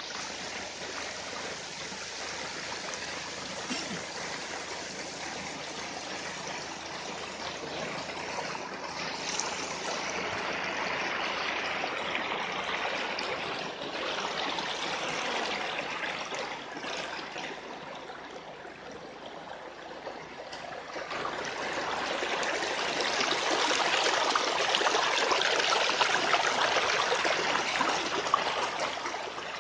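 Shallow rocky stream rushing and splashing over stones, a steady wash of water noise that swells and fades, dipping about two-thirds through and loudest near the end.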